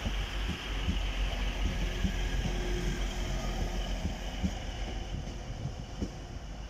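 Class 185 diesel multiple unit pulling away, its Cummins diesel engines running steadily with low knocks from the wheels over the track, fading as it draws off.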